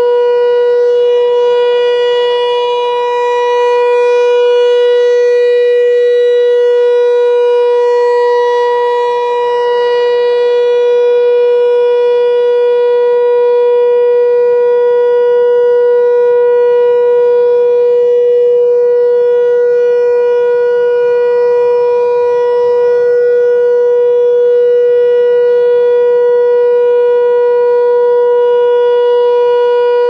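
American Signal T-128 electromechanical rotating warning siren sounding a steady tone during its scheduled monthly test. It holds one pitch throughout, swelling and dipping slightly in loudness as the rotating horn turns.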